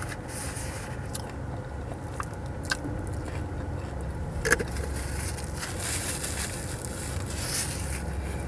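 Close-up chewing and biting of a potato-coated cheese corn dog: wet mouth sounds with a handful of sharp crunchy clicks and crackles, over a steady low hum of the car cabin.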